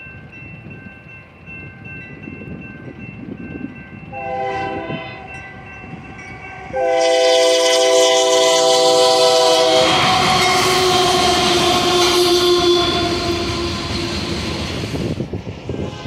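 Locomotive air horn at a grade crossing: a short blast about four seconds in, then a long loud blast from about seven seconds. After the blast the train passes close by with rail and wheel noise while a horn note lingers and fades. Before the horn a crossing bell rings faintly.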